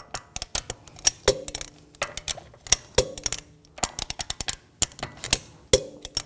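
Click-type torque wrench on wheel lug bolts being rechecked at 90 foot-pounds: quick runs of ratchet clicks, and a louder click with a short ring about every two seconds as each bolt reaches the set torque.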